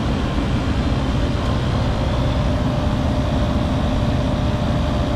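Trane rooftop packaged unit running in cooling, its compressor and condenser fan making a steady drone with a faint steady hum tone in it.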